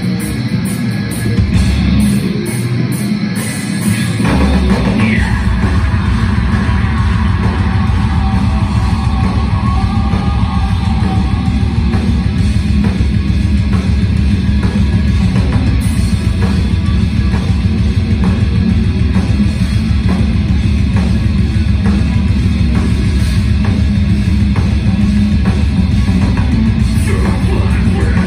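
Heavy metal band playing live, heard from the crowd: distorted electric guitars, bass and drums, with the full band crashing in about four seconds in after a lighter opening.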